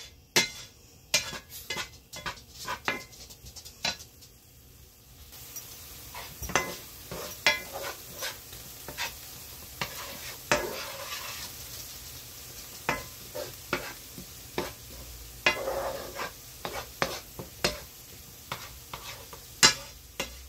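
Minced onions, celery and garlic frying in butter in a skillet, stirred with a wooden spoon: repeated clicks and scrapes of the spoon against the pan over a sizzle that comes up about five seconds in.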